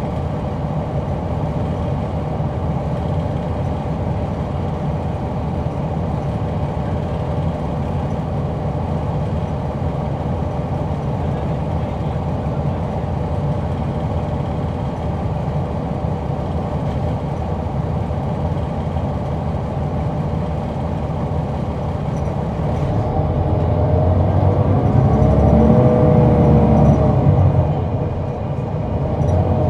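Caterpillar C9 ACERT diesel engine of a 2004 Neoplan AN459 articulated bus, heard from on board. It runs steadily, then accelerates harder from about 23 s with rising pitch, eases off briefly near the end and picks up again.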